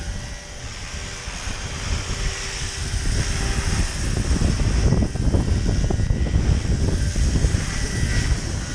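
Roban 700-size Black Hawk scale RC helicopter running with its rotors turning, a faint steady whine from the drive. About four seconds in, gusty wind buffeting the microphone grows loud and covers much of it.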